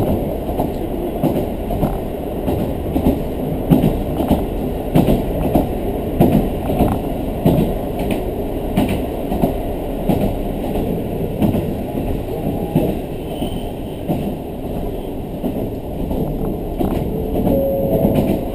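Diesel railcar running along the track, heard from inside the passenger cabin: a steady rumble of the train in motion, broken by frequent irregular knocks of the wheels on the rails.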